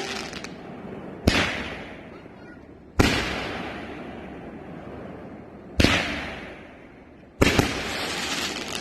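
A 500-gram consumer firework cake firing 2-inch nishiki willow shells: four loud bangs about one and a half to three seconds apart, each followed by a long fading hiss.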